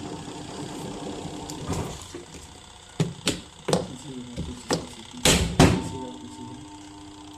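Sharp knocks and clatters of washing machine parts being handled and fitted back together, about six in a few seconds with the loudest near the end, over a steady low hum.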